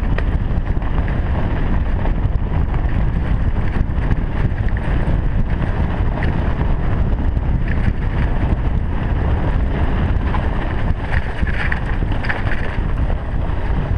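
Wind buffeting the microphone of a camera on a mountain bike riding fast downhill, over a steady low rumble and rattle from the bike on the rough snowy trail.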